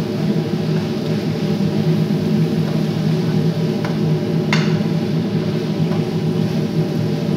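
A spoon stirring vegetables in a cooking pot, knocking lightly against the pot a few times, over a steady low hum.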